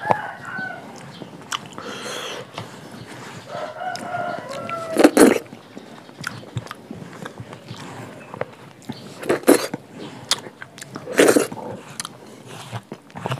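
Close-up eating sounds: a few loud, short crunching bites about five, nine and a half and eleven seconds in. A crowing call, like a rooster's, sounds in the background briefly at the start and again for about a second some four seconds in.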